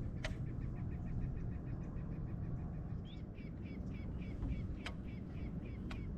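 A bird calling: a fast run of short repeated high notes, about seven a second, then slower chirping notes about three a second over the second half, with a steady low rumble of wind and water and a few sharp clicks.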